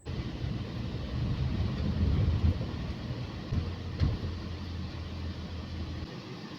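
A motor vehicle running, a steady low rumble with a low hum that drops away about six seconds in, and a single click about four seconds in.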